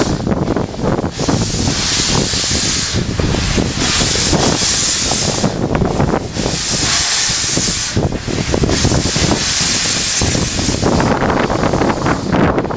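Steam locomotive working, with long hissing surges of steam coming about every two seconds over a steady low rumble of the moving train.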